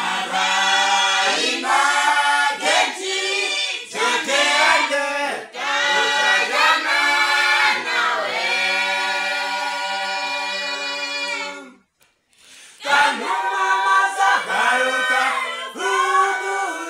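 Small mixed group of men and women singing a song a cappella in harmony, with no instruments. A long held chord breaks off about twelve seconds in, and after a short pause the voices start again.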